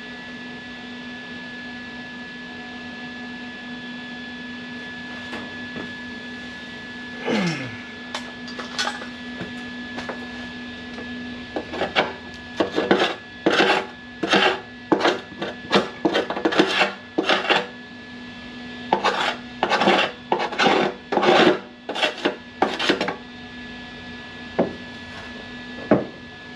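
Quick rubbing and scraping strokes in two runs, several a second, over a steady low hum, as a fire in the sound-deadening mat behind a fresh weld is put out.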